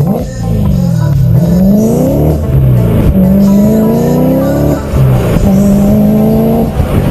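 BMW M3 engine and exhaust accelerating hard, the pitch climbing and then dropping back sharply twice before climbing again.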